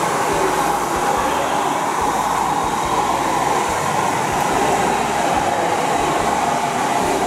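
Steady running noise of an On30-gauge model train moving along the layout's track.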